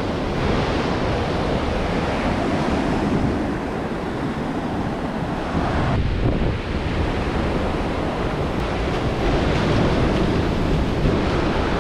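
Ocean surf breaking and washing up a sand beach, a steady rushing wash, with wind buffeting the microphone.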